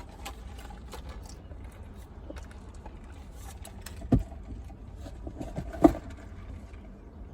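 A steady low rumble with faint scattered clicks and rustles, broken by two short, sharp thumps about four and six seconds in.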